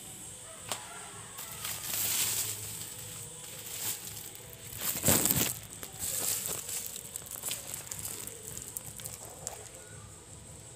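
Woven plastic sack crinkling and rustling as it is handled and pulled open, in uneven rustles, the loudest about five seconds in.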